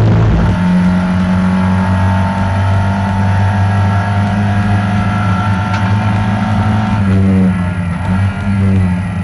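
Racing touring car's engine running hard at high revs, heard from inside the cockpit during a race. The engine note shifts about seven seconds in.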